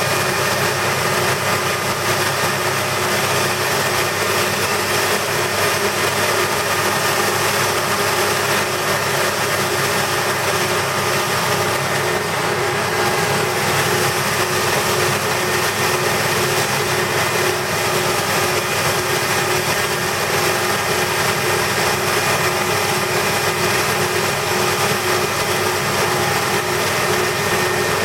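Electric cocoa and spice powder grinding machine running steadily: a constant loud hiss with a steady whine of several tones on top, unchanged throughout.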